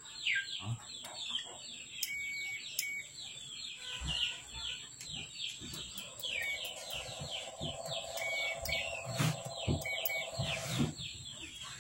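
Birds chirping steadily in the background, with a few brief beeps from a digital multimeter's continuity buzzer that cut in and out as the microphone cable is moved. The buzzer dropping out marks broken strands in the cable's ground wire. A steadier lower hum runs for a few seconds in the middle, with occasional light knocks.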